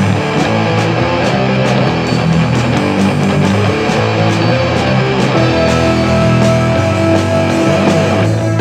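Rock band music led by guitar, with a steady beat. A single high note is held from a little past halfway through.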